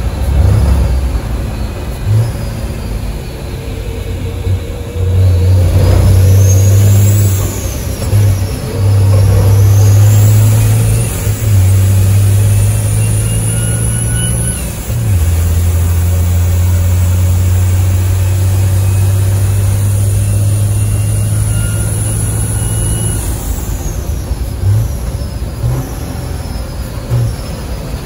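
Iveco S-Way race truck's diesel engine heard from inside the cab on a fast lap, a loud low drone that briefly dips a few times. A high whistle rises and falls several times over it.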